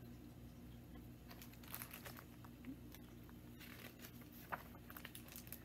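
Faint paper rustling and soft ticks as the page of a large picture book is handled and turned, over a low steady room hum.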